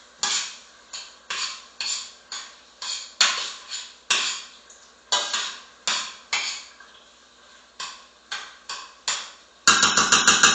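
A utensil stirring and scraping against a frying pan of sautéing chicken and onion, in separate strokes about two a second, ending in a quick run of clatters near the end.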